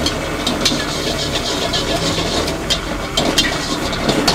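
Metal spatula clinking and scraping against a steel frying pan as food is stir-fried on a gas stove, in short irregular clicks over a steady frying hiss.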